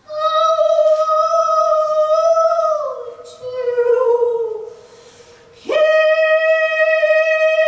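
A woman's voice singing long, wordless held notes, unaccompanied: one steady note slides down to a lower one that fades, then a new note starts sharply about two-thirds of the way through and is held.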